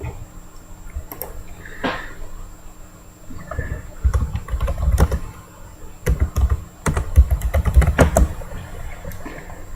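Typing on a computer keyboard: quick runs of key clicks, thickest about four and seven seconds in, with low thuds mixed in.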